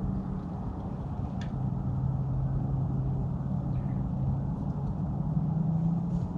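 A steady low mechanical hum, like a motor running, whose pitch drops about a second and a half in, with a few faint clicks.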